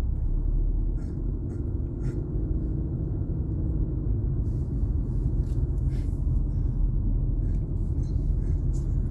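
Steady low rumble of a vehicle's engine and tyres on the road, heard from inside the cabin while driving at slow speed.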